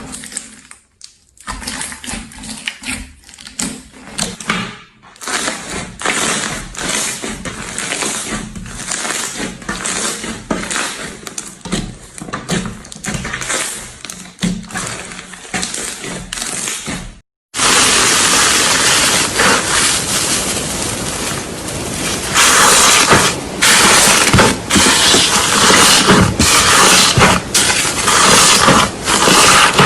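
Slime being squeezed, poked and stretched by hand, a steady run of sticky clicks and crackling pops. About two-thirds of the way through there is an abrupt cut, and it comes back louder and denser.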